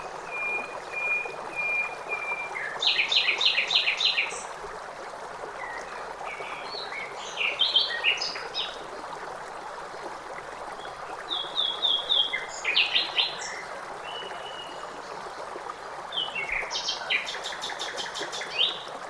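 Songbirds singing short phrases of rapid trilled notes every few seconds over the steady rush of a flowing stream.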